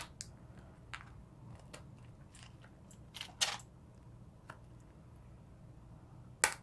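Kitchen scissors cutting through the hard shell of a raw lobster tail: irregular crunching snips and cracks. The loudest comes about three and a half seconds in and another near the end.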